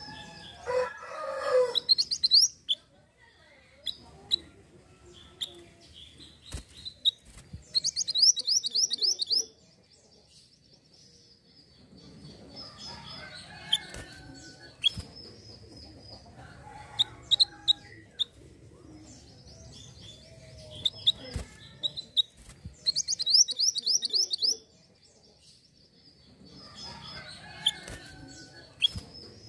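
Mantenan gunung songbird calling: scattered short, high chirps, broken twice by a fast, high trill lasting a second or two, about eight seconds in and again near three-quarters of the way.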